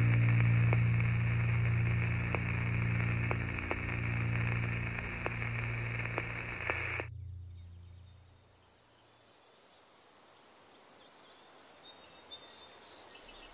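Sound-design drone: a loud low chord of steady tones under a hiss of static, with evenly spaced ticks about every second, cuts off suddenly about seven seconds in and the low drone fades out soon after. Faint outdoor ambience is left for the rest.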